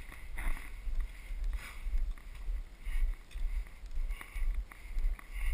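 Footsteps and gear rustling in a steady walking rhythm, with a low thud and a short scuff about once a second, heard close up from a body-worn action camera.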